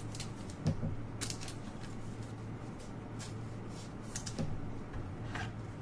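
Trading cards being handled: a scatter of soft clicks and rustles over a steady low hum.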